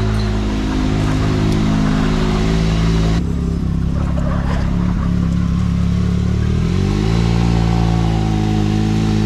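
Can-Am Maverick X3 side-by-side engine running at steady revs. The sound changes abruptly about three seconds in, then the pitch climbs to a higher steady note around seven seconds in.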